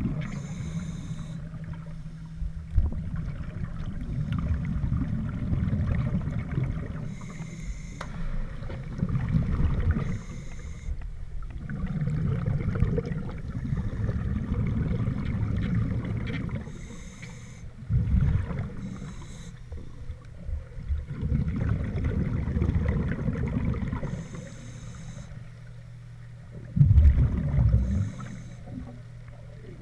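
Scuba regulator breathing recorded underwater: a short hissing inhale every few seconds, each followed by a low rumble of exhaled bubbles.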